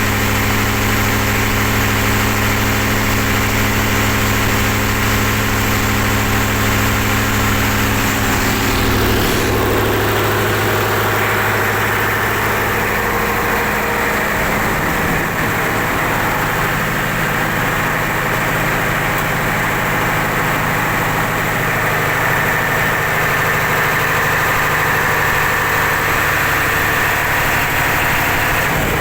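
Mitsubishi 8DC11 V8 diesel engine running steadily just after being started, its note changing about ten seconds in.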